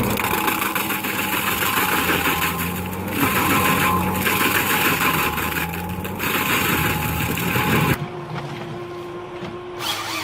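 A machine's engine running steadily. About eight seconds in it cuts off abruptly and gives way to a quieter machine sound with a steady hum.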